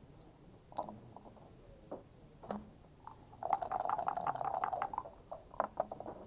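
Backgammon checkers and dice clacking on the board: single sharp clicks now and then, and a quick rattle of many clicks lasting about a second and a half midway through.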